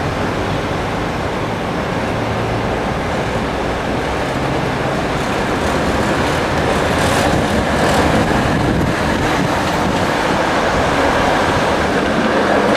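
Vintage PCC streetcar running past on its rails, over a steady wash of city traffic. The sound grows louder about halfway through as the car passes close, with a few faint clicks.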